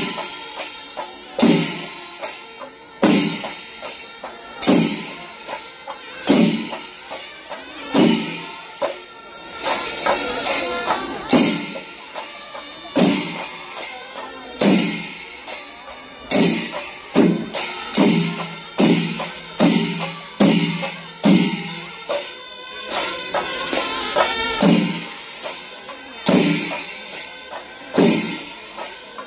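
Kerala chenda melam: chenda drums beating over continuously clashing ilathalam cymbals, with heavy accented strokes landing about every one and a half to two seconds and coming a little closer together in the second half.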